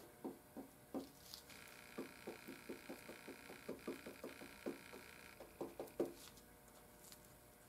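Paintbrush dabbing Bondo fiberglass resin into fiberglass cloth over a rust hole: a run of faint, soft wet taps, about two or three a second.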